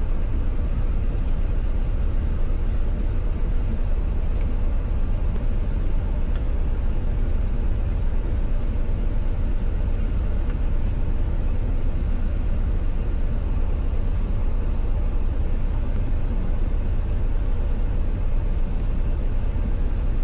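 Steady low rumble of a Ford F-150's engine idling, heard from inside the cab.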